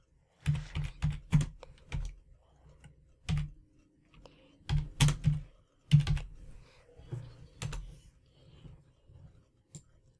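Typing on a computer keyboard: irregular runs of sharp keystrokes, busiest in the first eight seconds and thinning out near the end.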